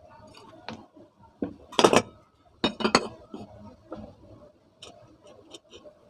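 Metal clinks and knocks from ceiling fan parts and tools being handled during a bearing change: two loud clusters of knocks about two and three seconds in, then a run of lighter taps.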